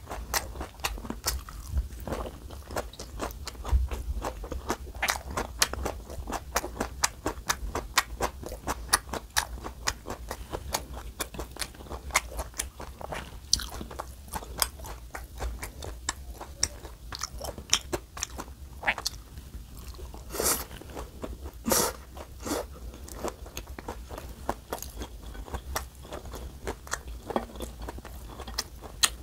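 Crunchy chewing of a mouthful of raw vegetables (bean sprouts, lettuce, cabbage, carrot and cucumber): a dense, unbroken run of crisp crunches and mouth clicks, with a few louder crunches about two-thirds of the way through.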